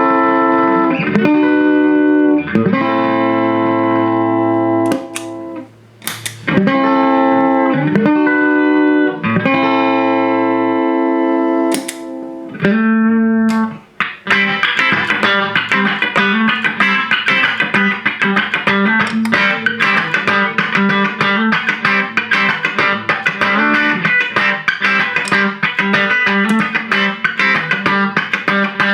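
Electric guitar, a Fender Stratocaster through a small Vox combo amp, played clean. Full chords ring out and sustain for the first half. From about halfway it switches to a fast, steady rhythm of quickly picked notes.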